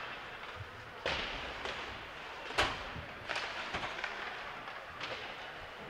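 Ice hockey on a rink: sharp knocks of sticks, puck and boards over steady arena background noise. The loudest crack comes about two and a half seconds in, after another about a second in, with smaller knocks following.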